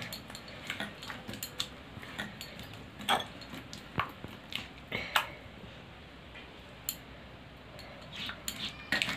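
Coriander paste being scraped by hand off a stone grinding slab into a steel bowl: scattered clicks and taps, with the bowl clinking now and then.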